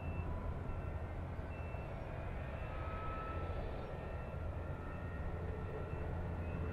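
Aircraft tow tractor's engine running steadily with a low rumble as it tows a Boeing 777-200, with faint high whining tones above it.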